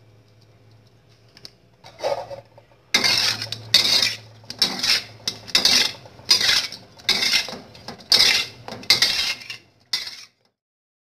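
Salted pieces of pressed tofu being tossed and shuffled in a dark container to coat them with salt: a rhythmic scraping clatter, about one to two strokes a second, starting about two seconds in and cutting off near the end.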